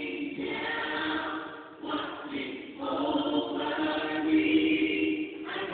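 A choir singing, in phrases of held notes with brief breaks between them.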